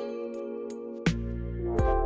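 Background music: sustained chords over a drum beat, with a heavy low drum hit about a second in.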